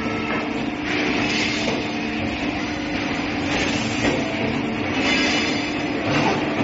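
CNC pipe bending machine working through a bend on a square aluminium profile tube: a steady motor hum with surges of hissing, grinding machine noise as the bending arm swings around the die.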